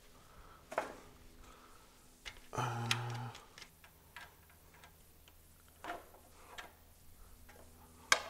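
Light clicks and taps of hand work on a Honda GX390 engine's air cleaner as its wing nut is unscrewed and the cover and filter element are lifted off. One louder half-second sound comes about three seconds in.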